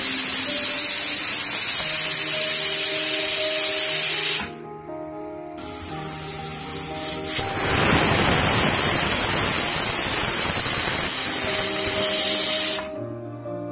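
Stovetop pressure cooker venting steam through its weighted whistle valve, a loud steady hiss that cuts off abruptly about four seconds in, comes back stronger, and cuts off again near the end. Background music with a melody plays under it.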